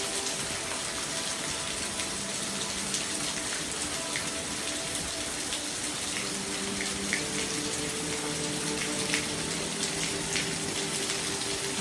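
Steady rain falling, an even hiss with scattered sharp drop ticks. Faint low steady hums come and go underneath.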